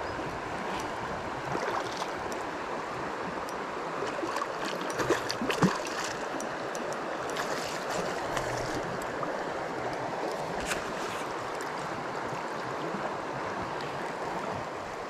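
Shallow river water running over stones with a steady rushing sound. A few sharp clicks come about five seconds in.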